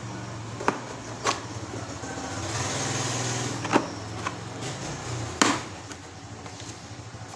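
Several sharp plastic knocks and clicks as an old electric fan's hard plastic neck tube and push-button switch housing are handled and fitted together. Under them runs a steady low hum that swells about halfway through.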